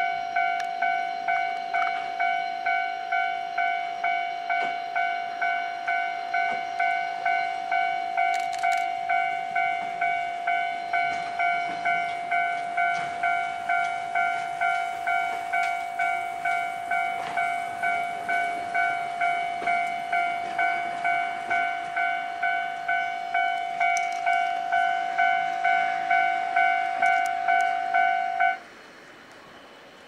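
Japanese railway level crossing warning bell ringing in an even ding-ding rhythm, about one and a half strikes a second, while a cable car passes over the crossing. It stops suddenly near the end, once the crossing clears.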